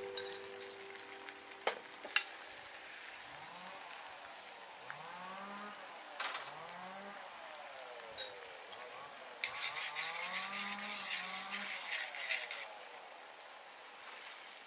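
Spicy tomato sauce frying in a pan over a charcoal grill, with a soft sizzle that grows to a denser crackle as it is stirred. Two sharp clinks of a utensil come about two seconds in. A call that rises and falls in pitch repeats several times in the background.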